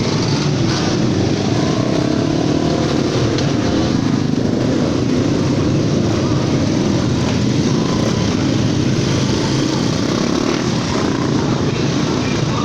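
A motor vehicle engine running steadily, with a constant dense noise and no pauses or changes in pace.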